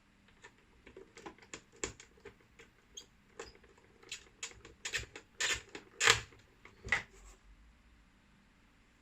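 Irregular clicks and taps of hard plastic parts being handled, from a Volvo S60 instrument cluster being worked on by hand, growing louder toward the end before stopping.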